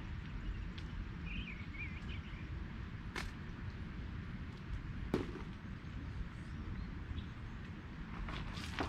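Outdoor ambience with a steady low rumble, a bird's short warbling chirp about a second in, and two sharp clicks about three and five seconds in.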